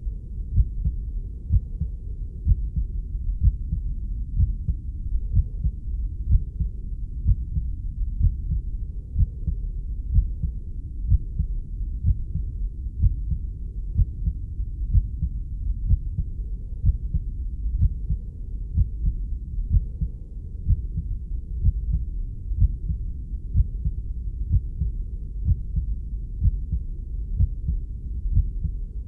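Heartbeat recording: steady, regular low beats over a continuous low rumble.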